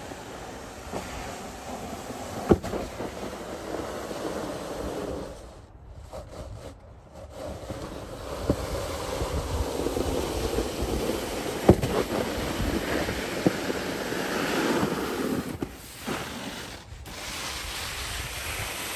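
Snow pusher blade on a hand truck scraping along a concrete walk as it pushes heavy wet snow: a steady rough hiss that gets louder as it comes closer, with a few sharp knocks and a brief drop-off about six seconds in.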